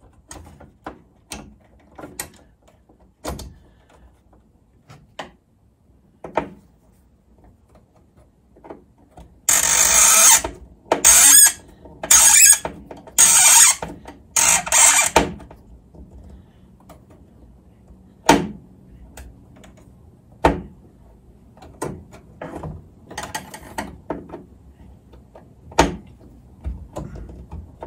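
A screwdriver fastening the copper ground wire to the ground bar of a metal breaker panel: scattered small clicks and taps of metal, and between about 9 and 15 seconds in, five short rasping runs of a ratcheting screwdriver's back-strokes.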